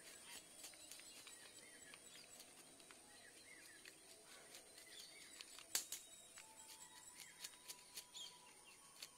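Faint clicks and scrapes of scissors scraping the scales off a small river fish, with one sharper click about halfway through and a quick run of clicks near the end.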